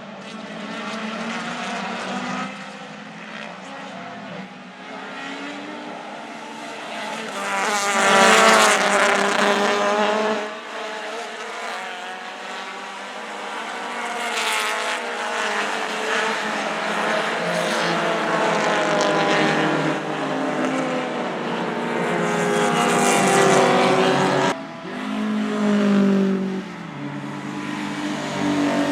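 Racing cars passing at speed one after another, engines at high revs with their pitch sweeping as each goes by; the loudest pass comes about eight seconds in, and the sound breaks off abruptly near the end before more cars follow.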